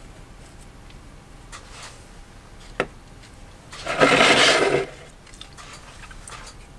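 Desk handling sounds while painting a miniature with a fine brush: faint light scratching of the brush, one sharp click just before three seconds in, and about four seconds in a louder rush of rustling noise lasting about a second.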